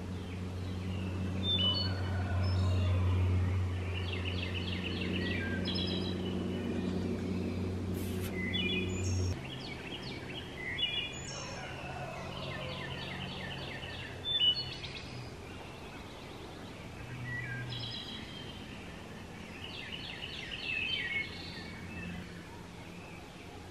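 Morning birdsong in woodland: several birds chirping and giving short, rapid trills again and again. Underneath runs a low steady hum that shifts up in pitch about nine seconds in and fades out a few seconds later.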